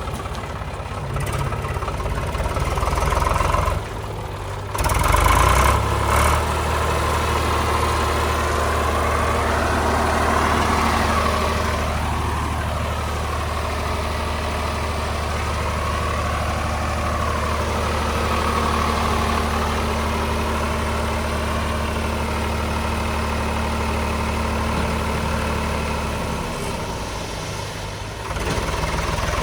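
JCB 3DX backhoe loader's diesel engine running steadily. The level dips briefly about four seconds in, then holds an even hum, which changes and drops briefly near the end before picking up again.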